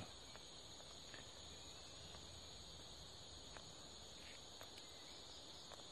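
Steady chorus of insects in rural vegetation, a constant high-pitched buzz, with a few faint scattered ticks.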